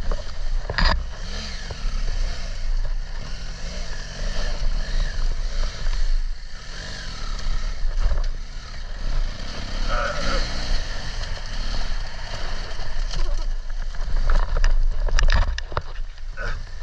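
Adventure motorcycle engine running under way, with wind and road noise and revs rising and falling, and a few sharp knocks near the end.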